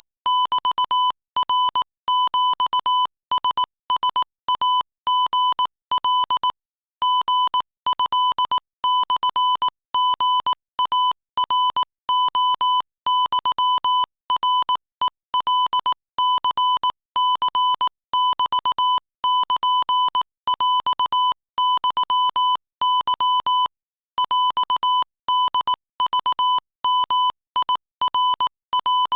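Morse code sent at 22 words per minute as a high, steady-pitched beep keyed on and off in rapid short and long elements, with brief pauses between letters and a few longer pauses between words.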